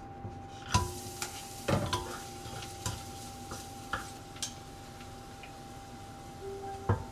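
Food sizzling in a pan while it is stirred, with a handful of sharp knocks of the utensil against the pan.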